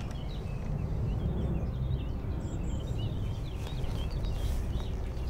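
Small birds chirping and singing, many short quick calls throughout, over a low steady rumble.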